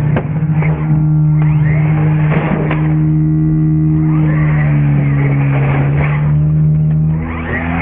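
Music with held low notes, over the whine of an electric R/C monster truck's motor revving up and down as it drives. There are a few thumps as the truck flips and tumbles on the grass.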